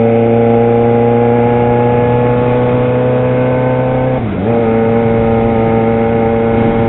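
Yamaha XJ6 motorcycle's inline-four engine running at a steady speed, its note dipping briefly and picking up again about four seconds in.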